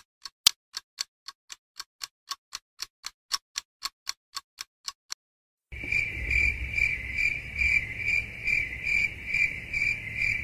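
Steady ticking, about four sharp ticks a second, stops about five seconds in. After a short gap, crickets chirp in an even pulsing trill, about three pulses a second, over a low background rumble.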